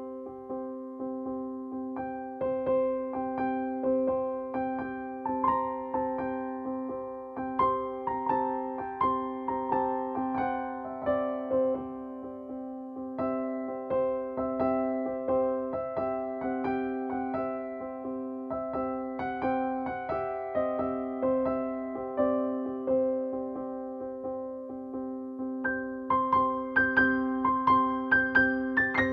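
Background music: a gentle electric-piano or keyboard melody of many short notes over a steady held low note, swelling slightly near the end.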